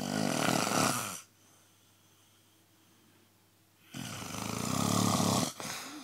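A sleeping person snoring: two long snores, each lasting a little over a second, about four seconds apart, with quiet between them.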